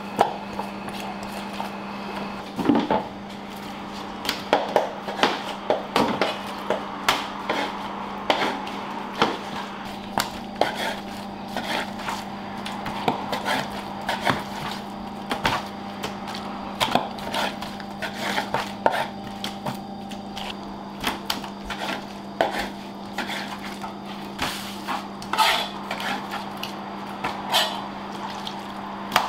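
Kitchen knife cutting raw chicken on a cutting board: irregular knocks and clatter, several a second at times, over a steady low hum.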